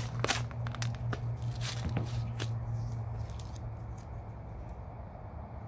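Vinyl wrap film being handled and cut at an angle: a few short sharp snips and crinkles in the first two and a half seconds, then quieter, over a steady low hum.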